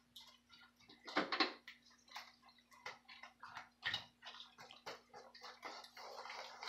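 Wire whisk beating a chunky raw egg mixture in a stainless steel mixing bowl: irregular wet sloshing with clicks of the wires against the steel, loudest about a second in and again near four seconds.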